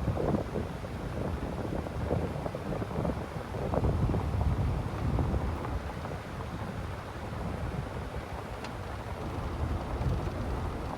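Wind buffeting the microphone, a gusty low rumble that rises and falls, with one faint tick near the end.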